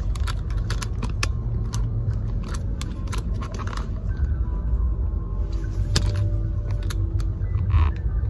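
Low rumble of a car on the move, heard from inside the cabin, with scattered clicks and rubbing from a phone being handled and moved about.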